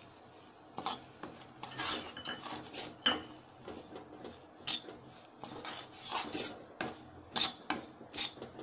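Steel spatula scraping and knocking against a heavy-bottomed kadai in short, irregular strokes, stirring wheat flour into melted ghee to roast it.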